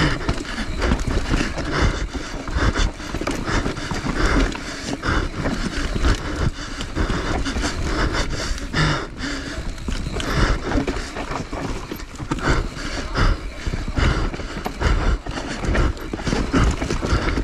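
Enduro motorcycle ridden off-road over rough ground: the engine running unevenly under a constant run of knocks and rattles from the bike, with the rider breathing hard.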